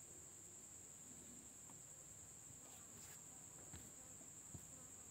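Near silence: a faint, steady high-pitched whine, with a few soft clicks in the second half.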